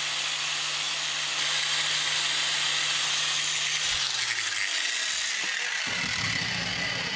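Corded angle grinder running against a block of wood held in a vise, grinding it to shape. About four seconds in it is switched off and its motor winds down, falling in pitch, followed by a few low knocks of handling near the end.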